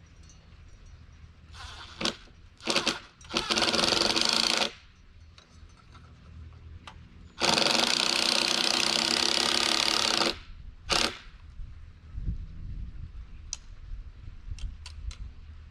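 Power drill running in two bursts, one about a second and a half long and one about three seconds long, with a few short clicks and knocks around them, typical of driving screws into a wooden box.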